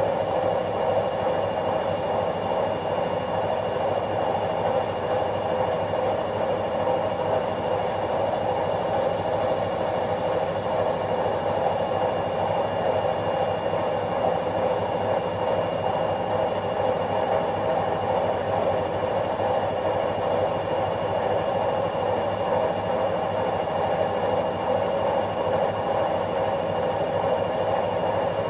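Washing machine running steadily: an even, unchanging drone with a thin, steady high whine over it.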